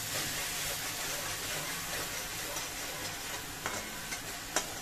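Ginger-garlic and green chilli paste sizzling in hot oil in a metal kadhai, stirred with a metal spatula. Two sharp clicks of the spatula against the pan come near the end.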